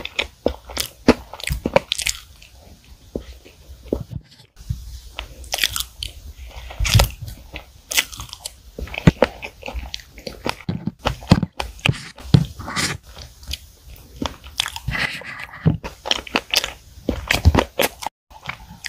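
Close-miked chewing of chocolate sponge cake with chocolate cream: irregular soft, wet mouth clicks and smacks, with a couple of brief pauses.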